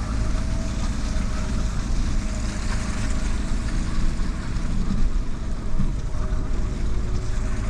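Fiat Panda 4x4 heard from inside its cabin as it drives slowly across a rutted, muddy field: a steady low rumble of engine and tyres, with a few small knocks as the car rides over the ruts.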